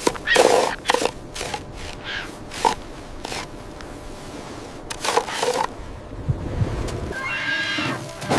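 An animal calling: a series of short, harsh squawks, then a longer pitched call near the end.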